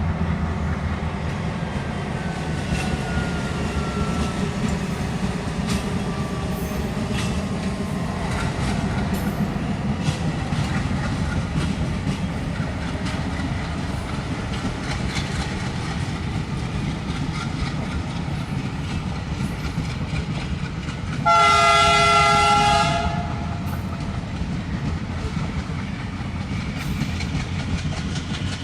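ALCO diesel locomotive hauling a passenger train, its engine chugging with a steady low throb over the clatter of the wheels. About three-quarters of the way through it sounds one loud, chord-like horn blast lasting about two seconds.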